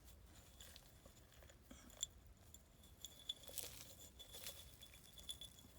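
Near silence, with a few faint, scattered clicks and clinks of glass and debris being handled.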